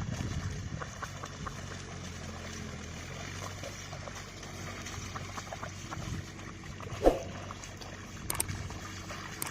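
Water sloshing and splashing, with scattered light knocks and one sharp thump about seven seconds in.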